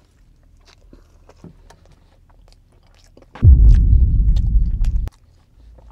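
A man chewing a big mouthful of oxtail mac and cheese sandwich, with soft, wet clicks from his mouth. About three and a half seconds in, a loud low rumble lasts under two seconds and cuts off suddenly.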